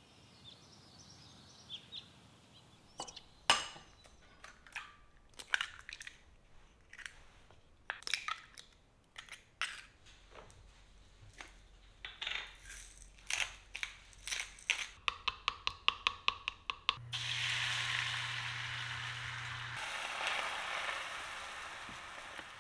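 Eggs cracked and beaten in a glass: scattered sharp taps and clinks, then a quick even run of clicks as the egg is beaten. About 17 seconds in, the beaten egg goes into a hot square omelette pan and sizzles steadily.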